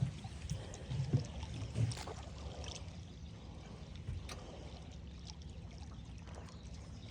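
Water sloshing and lapping against a small fishing boat's hull, with a low steady rumble and a few soft knocks in the first half.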